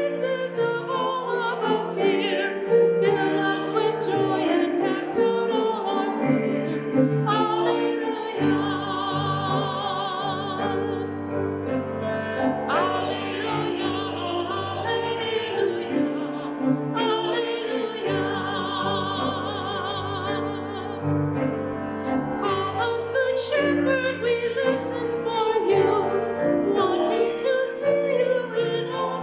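Church music: a singing voice holding long notes with vibrato over keyboard accompaniment.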